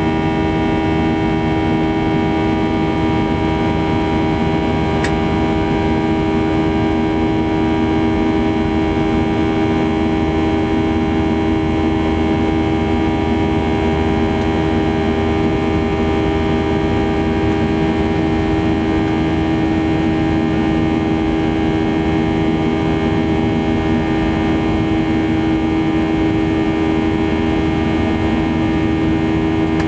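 Boeing 737-800's CFM56-7B turbofan engines heard from inside the cabin in flight: a steady buzzing drone made of many steady tones over a rushing noise. A single faint tick comes about five seconds in.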